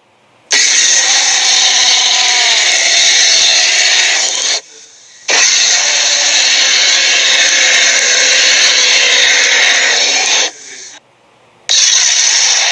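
Cartoon sound effect: a loud, harsh, machine-like noise that plays in three long stretches, cut off by two short silences.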